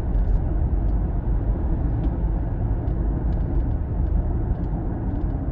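Toyota Prius Prime cabin noise while driving: a steady low road rumble with faint, irregular light ticks scattered through it. The ticks are the intermittent interior rattle the owner is chasing.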